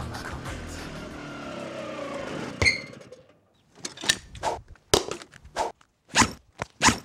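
Small motor scooter engine running and slowing, its pitch falling. A single sharp thunk comes about two and a half seconds in. After a short pause comes a series of heavy boot steps on dirt, about two a second.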